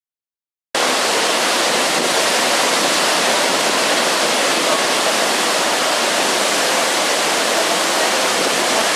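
Niagara Falls: a loud, steady rush of falling water, cutting in suddenly under a second in after silence.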